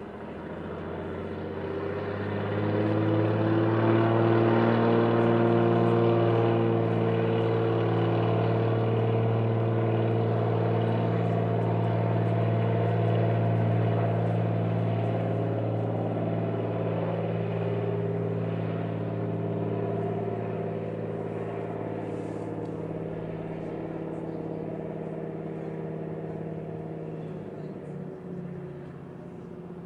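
De Havilland DHC-2 Beaver floatplane's nine-cylinder radial engine and propeller at full takeoff power. The sound swells over the first few seconds as the throttle comes up and the plane runs along the water on its floats. It holds steady, then slowly fades as the plane lifts off and climbs away.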